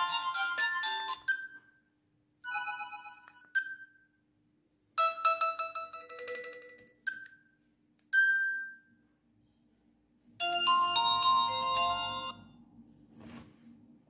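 An Alcatel OT-222 flip phone's speaker playing short previews of its polyphonic MIDI ringtones one after another, each cut off after a second or two by a short keypad beep. Near the end a longer polyphonic tune plays for about two seconds, followed by a single click.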